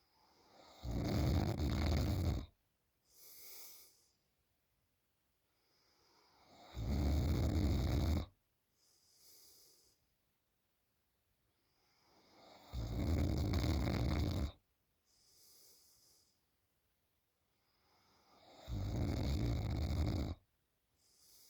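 A sleeping woman snoring loudly in a slow, even rhythm: four long snores about six seconds apart, each building up and then stopping abruptly, followed by a short, quieter breath.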